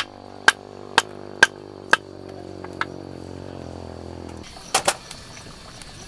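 Sharp taps, about two a second, that stop about two seconds in, over a steady low hum that cuts off suddenly about four and a half seconds in; then two quick taps close together.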